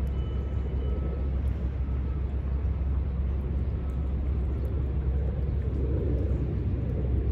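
Steady low rumble of outdoor ambient noise, with a faint thin high tone for about the first second.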